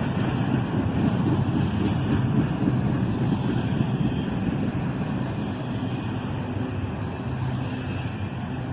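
CSX freight train rolling past, its cars making a steady rumble on the rails that slowly grows quieter.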